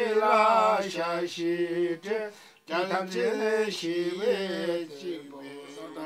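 A man chanting a Bon ritual text in a sung recitation, his voice holding and bending long notes, with a short break for breath about two and a half seconds in.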